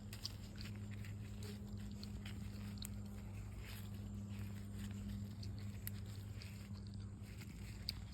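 Faint, scattered rustles and small clicks of hands digging through potting soil in a pot and picking out small potatoes, over a steady low hum.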